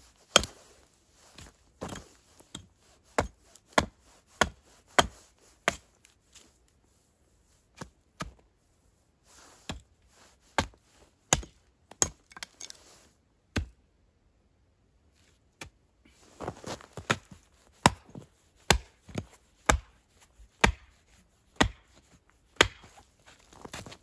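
Hatchet chopping into a dry wooden branch: a string of sharp, separate chops, about one or two a second, with a short pause past the middle before the blows resume.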